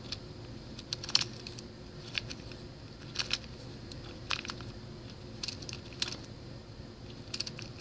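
Small plastic gear wheels on a Fidget Cube's roll face being turned by thumb, giving short sharp clicks about once a second, some in quick runs, as each gear catches in its detent.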